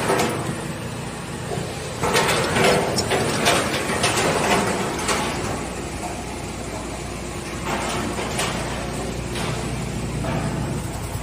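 Automatic packaging line machinery running: a steady mechanical noise with several louder, noisy clattering stretches.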